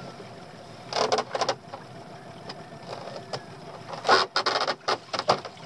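Crab pot hauled by hand out of the sea over the side of a small boat: splashing and water running off the pot, with knocks against the hull. There is a short burst about a second in and a longer, louder one from about four seconds in.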